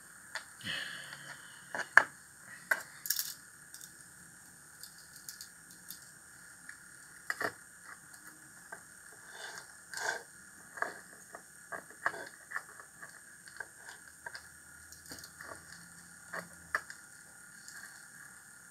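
Irregular small clicks, taps and clinks of small metal parts and wire being handled and set down on a tabletop, the sharpest click about two seconds in.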